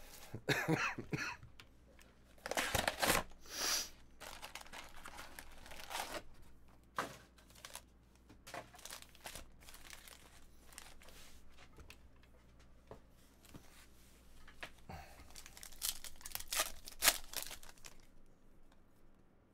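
Plastic wrapping and foil trading-card packs crinkling and tearing as a card box is unsealed and a pack is ripped open, in irregular rustling bursts, loudest about three seconds in and again near the end.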